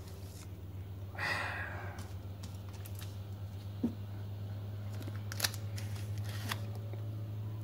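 Faint handling noise over a steady low hum: a brief rustle about a second in, then a few light clicks.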